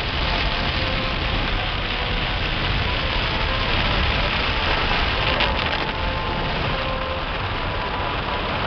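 Heavy rain pelting a car while its engine runs, heard from inside the car: a steady dense hiss over a low rumble.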